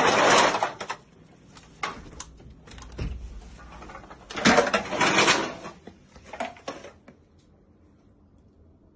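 Two loud bursts of rustling and clattering, about a second long each, one at the start and one about four and a half seconds in, with a few sharp clicks between; it goes quiet about seven seconds in.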